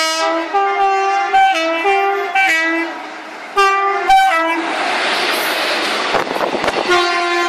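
Electric locomotive of a passenger train sounding its horn repeatedly as it approaches, alternating between a higher and a lower note. The coaches then rush past close by, and the horn sounds once more near the end.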